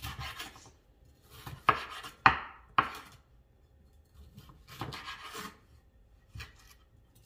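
Kitchen knife slicing a red bell pepper into strips on a wooden cutting board: a few irregular cuts, each ending in a knock of the blade on the board, the loudest a little over two seconds in.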